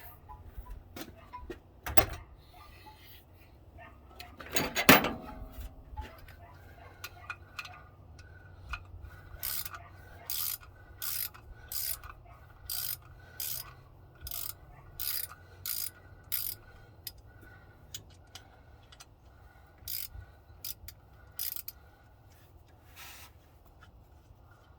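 Ratchet wrench clicking in a steady run of short strokes, about two a second. A couple of sharp metallic knocks come a few seconds before it, the second one ringing.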